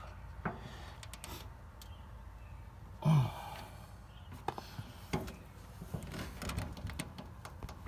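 Light metallic clicks and taps of a screwdriver and end wrench working on a stuck, rusted fastener, with a man's strained exhale about three seconds in as he bears down on it.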